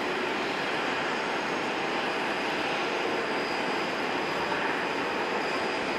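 Jet airliner engines running: a steady rushing noise with a faint high whine and no change in level.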